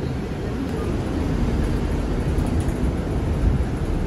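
Inside a city bus: steady low rumble of the bus's engine and running gear as it moves off, growing slightly louder about a second in.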